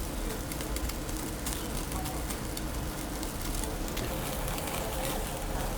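Meat sizzling on a charcoal grill, with a steady hiss and many small scattered crackles and pops.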